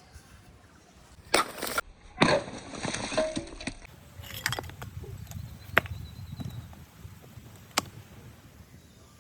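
Hand tools working wood: two rasping cutting strokes in the first four seconds, then scattered sharp taps.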